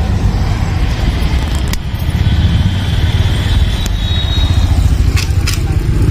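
Road traffic going past a roadside stall, a steady low rumble, with a few sharp clicks.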